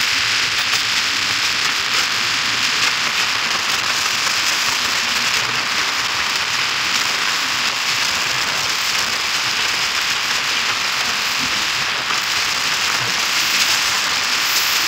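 Steady rushing hiss of wind and road noise on the microphone while riding a two-wheeler at speed, with no engine note coming through.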